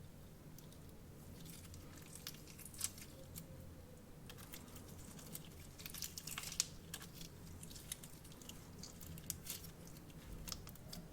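Slime and stress-ball filling being squished and worked by hand, giving faint, irregular crackles and small sticky clicks. They come thickest about six to seven seconds in.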